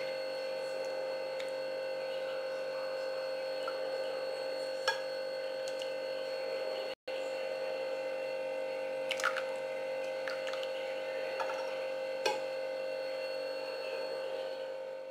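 Steady electrical hum made of several fixed tones, with a few light clinks of a metal spoon against a ceramic soup bowl. The hum cuts out for an instant about halfway through.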